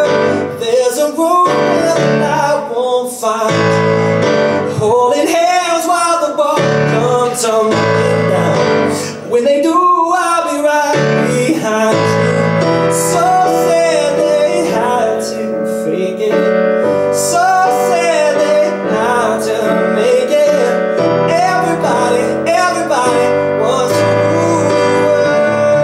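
Live pop song: a man singing over piano and guitar accompaniment.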